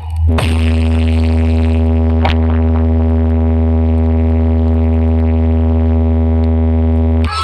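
A DJ sound system's speakers playing a loud synthesizer bass drone for a speaker check. One low note with heavy bass is held steady throughout, with a brief falling sweep at the start and a click about two seconds in.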